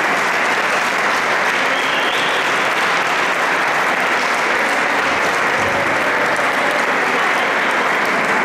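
Audience applauding, a dense and steady clapping that holds at the same level throughout.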